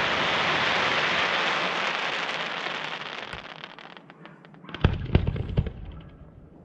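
Aerial fireworks: a dense crackling hiss that dies away over about three seconds, followed about five seconds in by a quick cluster of sharp bangs and pops.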